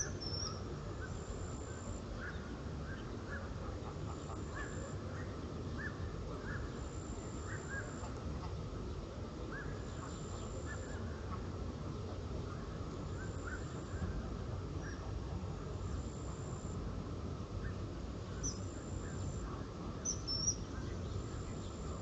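Flock of white domestic waterfowl on a pond giving many short, scattered calls. A few higher bird chirps come in, a thin high note repeats in short dashes about every two seconds, and a steady low rumble runs underneath.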